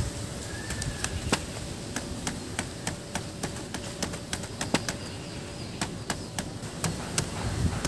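Kitchen knife chopping into a peeled tender jackfruit on a plastic cutting board: an uneven run of sharp knocks, about two or three a second.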